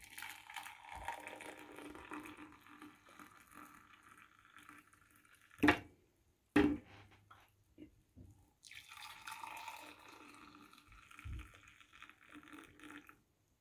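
Milky tea poured from a stainless steel saucepan into a ceramic mug, a steady stream for about five seconds, then two sharp knocks, then a second mug filled for about four seconds.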